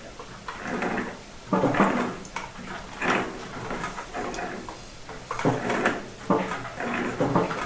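Black iron pipe fittings being screwed together, the threads creaking and squeaking in a series of strokes as each turn is made, with small metallic clicks.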